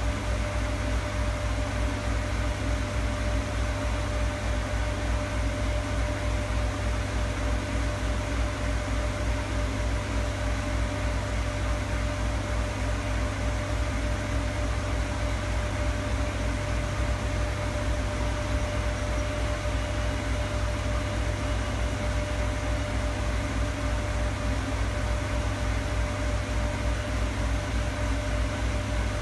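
Steady machine hum from a Primus RS16 commercial front-loading washer: a low rumble, an even hiss and one constant whine, unchanging throughout, while the drum stands still.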